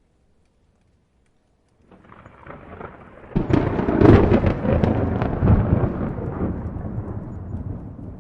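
Thunder: after a brief silence a low rumble builds, breaks into a sharp crack about three and a half seconds in, then rolls on loudly and slowly fades.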